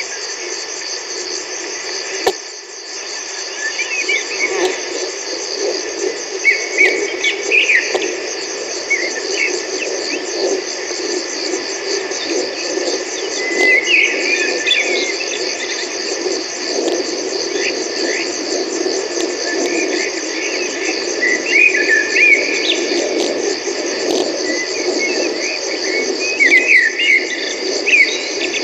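Steady chirping of crickets, with scattered bursts of short, sharp Eurasian blackbird calls every few seconds, loudest around a third of the way in and near the end.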